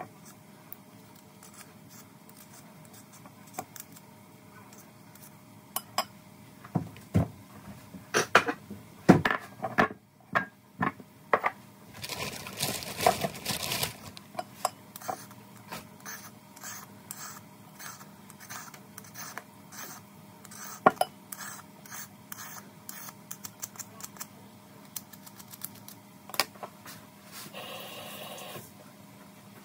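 Dishes and utensils clinking and knocking at irregular intervals, with a brief hiss about twelve seconds in that lasts around two seconds.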